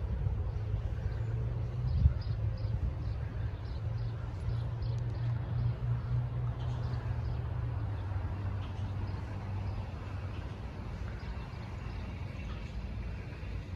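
Swallows twittering in short, high chirps, most often in the first half, over a steady low hum that is louder than the birds. A single thump about two seconds in.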